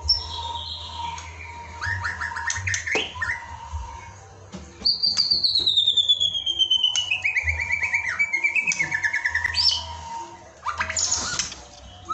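White-rumped shama singing: a series of varied clear whistles and fast trills. Through the middle comes a long whistled note that slides down in pitch and breaks into rapid pulses.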